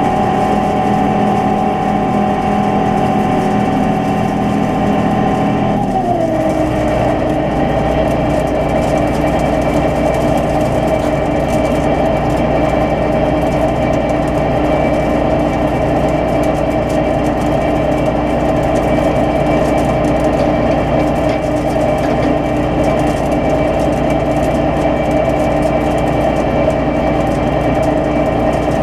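John Deere 9500 combine running steadily. About six seconds in, its machine tones slide down in pitch and then hold at the lower pitch with a fuller low rumble.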